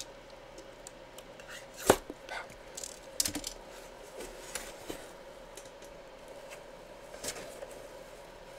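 A cardboard box being handled: scattered taps and knocks, the loudest a sharp knock about two seconds in, over a faint steady hum.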